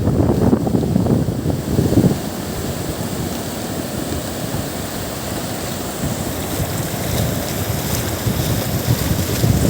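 Wind buffeting the microphone over the wash of sea surf, gusting hardest in the first two seconds and then settling to a steadier rush.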